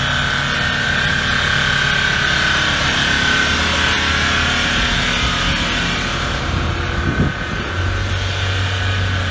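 A city bus and a four-wheel-drive SUV running on a snowy road: a steady engine hum, with a high whine over it for the first few seconds. Near the end a deeper engine hum grows as the bus pulls close.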